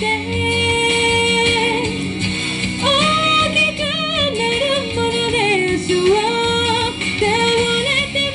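A woman singing a song live into a microphone over backing music, holding long notes with vibrato.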